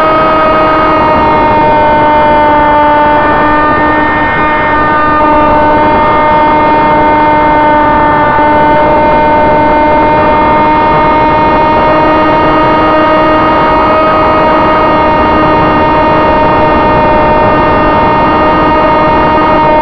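Electric motor and propeller of a Sonic Modell AR Wing RC flying wing, heard from a camera on board in flight: a loud, steady whine with many overtones, its pitch shifting only slightly.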